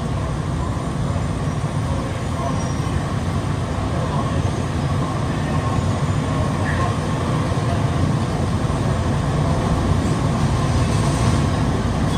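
Plane Train rubber-tyred automated people mover car running through its tunnel, heard from inside the car as a steady low rumble that grows slightly louder toward the end.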